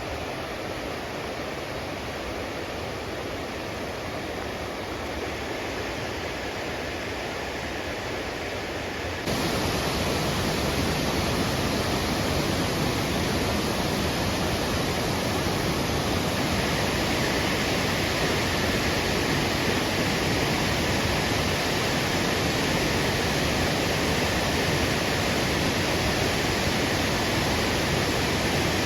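Waterfall: the steady rush of falling water, stepping up louder and brighter about nine seconds in.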